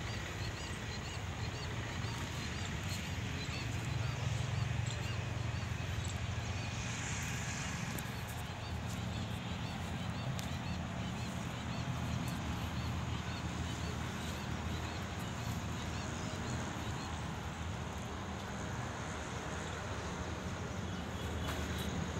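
Outdoor ambience: a low steady rumble, with a small bird chirping over and over, about three chirps a second, during the first third.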